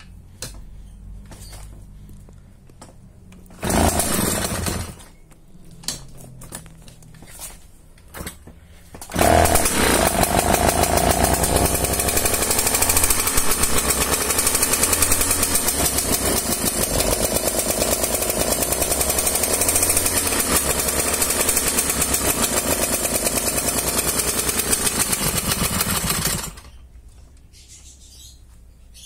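Romet Komar 232 moped's 50 cc two-stroke engine being started after years of standing. A brief burst comes about four seconds in. The engine catches about nine seconds in, runs with a loud, fast rattle for some seventeen seconds, then cuts off suddenly.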